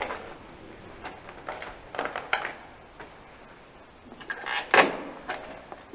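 Mountain bike clattering and knocking as it is stopped and leaned against a concrete wall, a few scattered knocks with the loudest just before the end.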